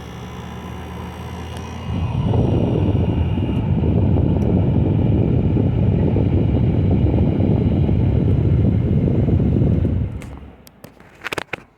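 Midea 5000 BTU window air conditioner running on high fan: a steady hum, then about two seconds in a loud, low rush of blowing air that holds for about eight seconds before dropping away. A few sharp knocks come near the end.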